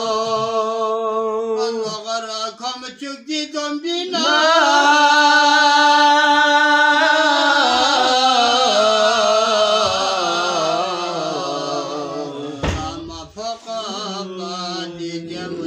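A man singing a devotional Sufi qasida unaccompanied, in long drawn-out notes. About four seconds in he rises to a louder note held for around three seconds, then his voice slides slowly downward.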